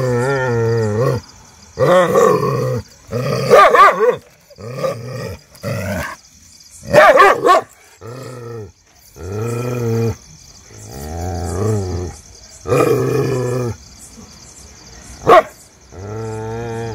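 A street dog barking and growling in drawn-out, rough calls of about a second each, repeated with short pauses between them, with one short, sharp bark near the end.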